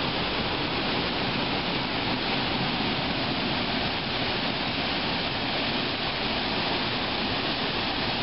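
River whitewater and a small waterfall rushing through a narrow rock gorge, a steady, unbroken rush of water.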